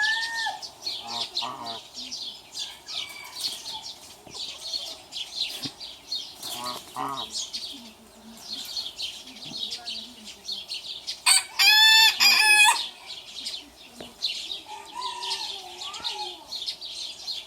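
Chickens clucking softly, and about eleven seconds in one loud rooster crow lasting about a second and a half. High chirping runs on throughout.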